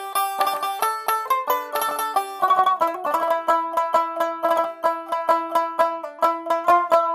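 Background music of quick plucked-string picking, many notes a second, with a change of chord about three seconds in.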